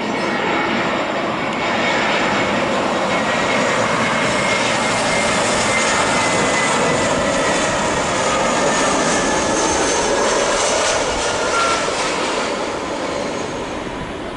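Jet airliner, an Airbus A320-family twinjet, passing low while landing: a dense engine noise with a thin high whine that slides slightly lower. It builds over the first couple of seconds, holds, and fades near the end.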